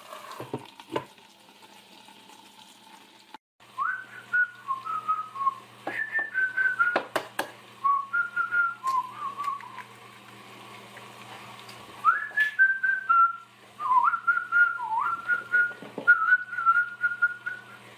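A person whistling a tune, with a short break midway, over the faint steady sizzle of food frying in a covered skillet; a few light clicks of utensils.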